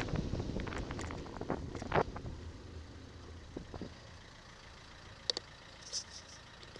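Wind noise on a bicycle camera's microphone dying away over the first few seconds as the bike slows, leaving the low hum of car engines idling in stopped traffic. There is one sharp click about two seconds in and a couple of short high clicks near the end.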